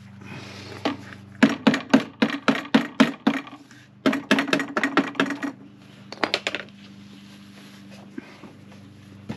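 Quick runs of sharp metallic knocks on the sheet-metal casing of a cut-open, repacked muffler, about four or five a second: one run starting about a second and a half in, a second run about four seconds in, and a few more knocks near six and a half seconds. A steady low hum runs underneath.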